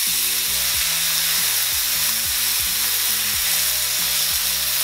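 Ribeye steak searing in a cast-iron skillet heated on high, sizzling steadily and loudly.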